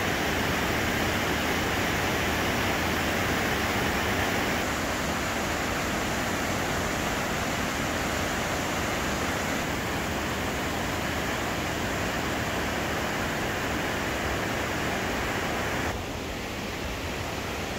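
Steady rush of white-water river rapids, a little quieter near the end.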